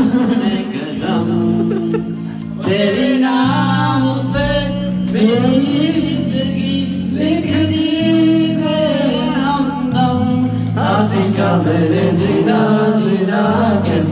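A man singing into a handheld microphone, amplified, over an accompaniment of sustained low chords.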